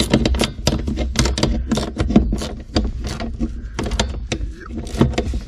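Ratchet wrench clicking in quick, uneven runs as a nut is run down onto the accelerator pedal's mounting bracket.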